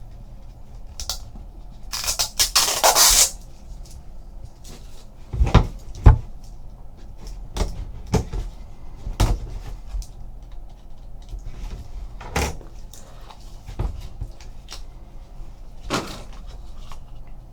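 A trading card box and its packaging being handled on a table: a rustle lasting about a second, two seconds in, then scattered knocks and taps as the box is opened and the cards are taken out.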